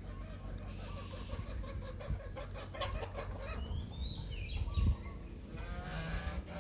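Chickens clucking, with a rooster crowing once about four seconds in.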